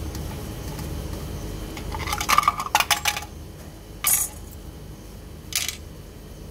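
Small metal clinks from a screwdriver and screws while the terminal box cover of an electric water pump is fitted: a quick rattling cluster of clinks about two seconds in, then two single clinks.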